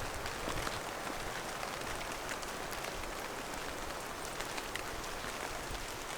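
Light rain falling steadily, a constant hiss with scattered small drop ticks.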